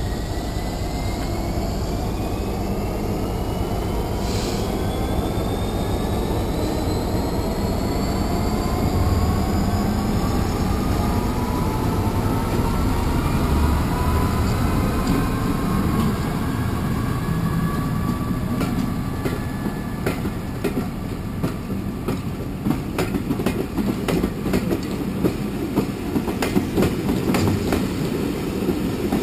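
Class 66 diesel-electric locomotive with its two-stroke V12 engine pulling a train away under power, together with a Class 73. The engine note rises steadily in pitch as the train accelerates over the first dozen seconds. The passenger coaches then roll past with their wheels clicking over the rail joints.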